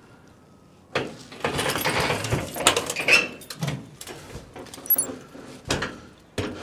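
Close handling noise of a person moving about in a metal roof box gutter: rustling, scraping and several light knocks against the metal sheeting, starting about a second in.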